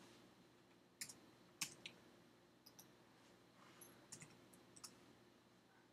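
Faint computer mouse and keyboard clicks as a value is entered: three sharper clicks about a second in, then a few lighter ones, over near-silent room tone.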